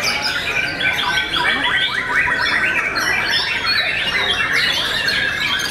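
Several caged white-rumped shamas (murai batu) singing at once: a dense, unbroken tangle of overlapping whistles, fast trills and harsh squawking notes.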